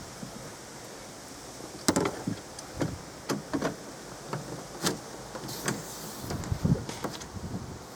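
Irregular clicks, taps and knocks of tools and trim while the inside door panel of a Skoda Favorit is being worked off, starting about two seconds in.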